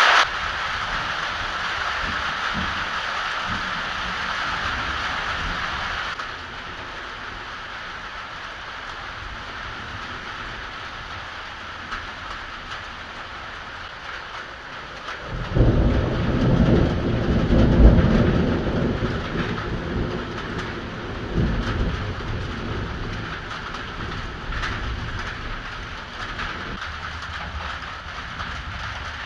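Steady heavy rain, with a long rolling thunder rumble that breaks in about halfway through, swells for several seconds and dies away.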